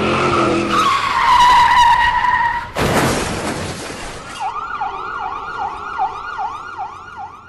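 Added sound effects: a car's tyres screeching, then a sudden loud crash about three seconds in. An emergency-vehicle siren follows, yelping up and down about two and a half times a second and fading out.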